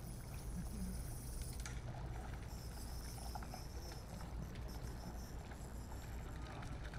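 Outdoor background noise: a steady low rumble with faint high-pitched sounds over it.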